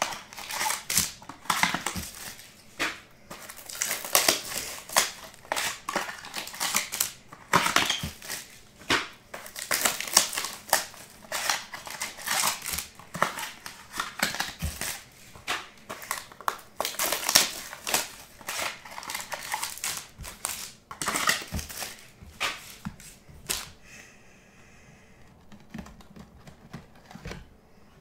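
Plastic shrink-wrap and cardboard of a sealed trading-card box crinkling and crackling as the box is unwrapped and opened by hand, in a quick, irregular run of crackles. It dies down about four seconds before the end.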